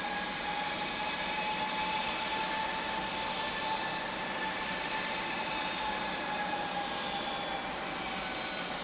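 Airbus A321 jet engines running at taxi power as the airliner rolls toward the runway: a steady rush with a high turbine whine that sinks slightly in pitch near the end.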